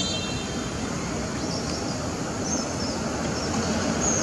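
Steady outdoor background noise like distant traffic, with a few faint, high, short chirps in the middle and near the end.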